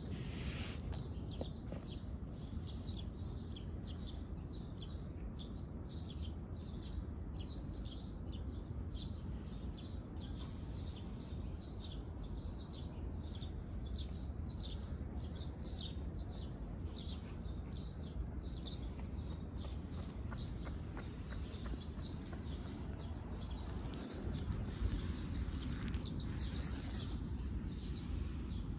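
A small bird chirping over and over, about two short high chirps a second, over a steady low outdoor rumble.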